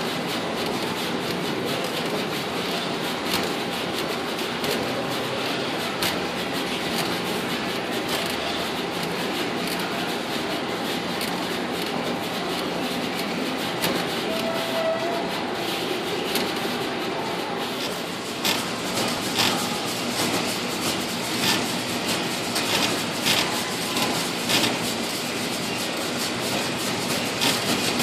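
Assembléon iFlex T2 SMT pick-and-place machine running at speed: a steady mechanical whir filled with fast clicking from the placement heads and feeders. About two-thirds of the way through, louder, sharper clacks start coming in quick irregular clusters.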